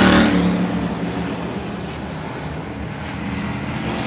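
Dirt-track pure stock race car passing close at racing speed, loudest about the start and fading within a second, then the engines of the field running on around the track.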